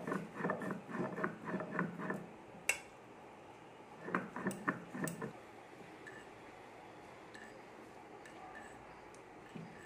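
A stone roller rubbed back and forth on a flat grinding stone (shil-nora), grinding poppy seeds: quick rhythmic scraping at about four to five strokes a second for about two seconds, a single sharp click, then a second short run of scraping about four seconds in.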